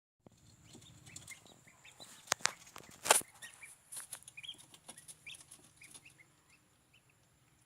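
Newly hatched chicks peeping in many short, high chirps, with a few sharp knocks about two to three seconds in.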